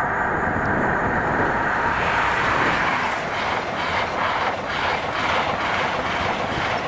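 InterCity 125 high-speed train, a class 43 diesel power car and its coaches, passing close by at high speed. The rush grows brighter about two seconds in as the coaches reach the crossing, then a rapid run of wheel beats follows as the bogies go by.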